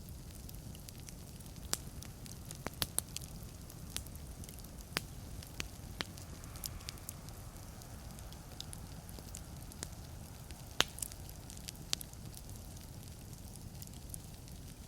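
Wood fire burning in a fireplace: a steady low rumble with irregular sharp crackles and pops of the burning logs, the loudest pop about eleven seconds in.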